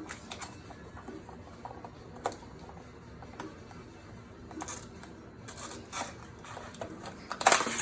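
Kitchen handling noises while baking: scattered light clicks and knocks with a few brief rustling or scraping bursts, the loudest cluster near the end.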